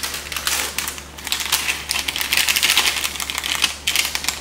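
Plastic ramyun sachet crinkling as it is torn open, then its dried vegetable flakes shaken out into the pot of water, a dense patter of small clicks and rustles.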